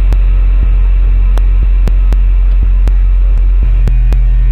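Electronic music soundtrack: a loud, steady low bass drone with scattered sharp clicks over it.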